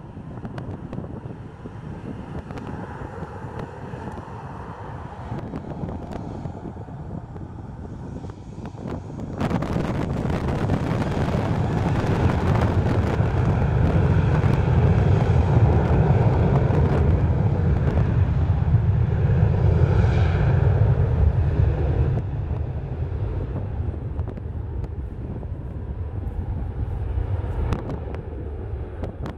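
Boeing 737-900 jet airliner's CFM56-7B engines running, a low rumble that rises sharply about a third of the way in, holds loud for several seconds, then eases as the jet moves off down the runway at takeoff power. Wind buffets the microphone throughout.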